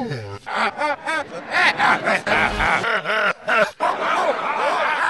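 A man's ape-like grunts played backwards: a quick run of short, rising-and-falling vocal grunts, each snippet cut off abruptly where the clips are spliced together.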